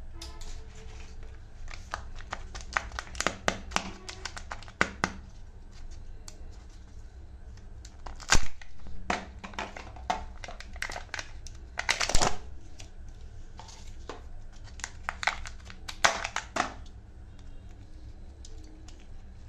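Crinkly plastic wrapper of a Kinder Joy egg being peeled and torn off by hand. It comes as bursts of sharp crackles, with a few louder snaps about 8, 12 and 16 seconds in.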